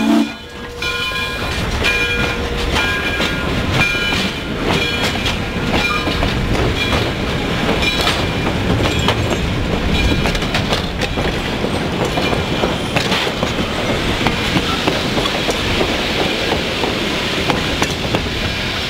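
Frisco 1630, a 2-10-0 steam locomotive, passing close by, followed by its train of passenger coaches rolling past with wheels clicking over the rail joints. Brief high ringing notes come in the first few seconds, and the rolling noise stays steady until the last coach goes by.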